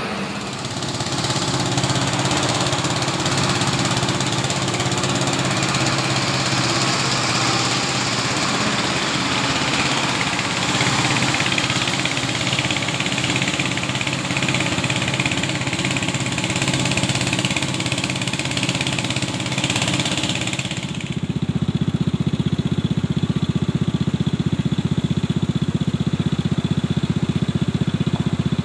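Diesel tipper truck engine running as the truck pulls away, with a lot of hiss above the engine note. About 21 seconds in the sound changes abruptly to a steadier, lower diesel engine note with a fast even pulse.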